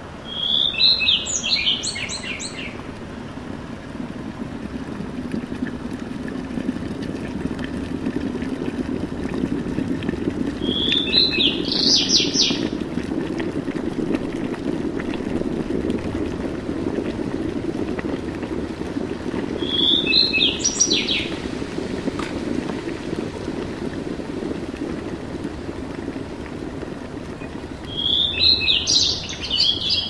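A bird's short chirping call, sounded four times about every eight or nine seconds, as a morning ambience sound effect, over a steady low rushing noise.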